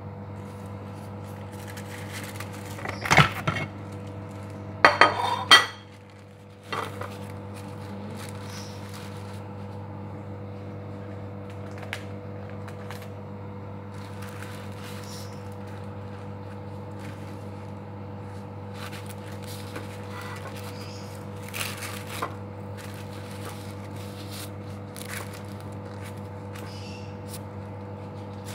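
Plate and knife clattering on a kitchen countertop: a loud clank about three seconds in and a quick rattling clatter about five seconds in, then only a few light taps, over a steady electrical hum.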